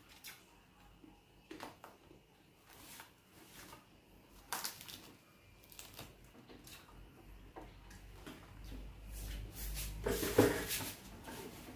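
Quiet eating sounds: scattered small clicks, crunches and smacks of someone chewing crispy deep-fried pork hock skin and handling food on a plate by hand. Louder knocks and rustles come near the end.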